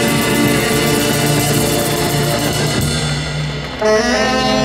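Brass band of saxophones and trumpets playing, with drums and cymbals keeping the beat; a new melodic phrase comes in near the end.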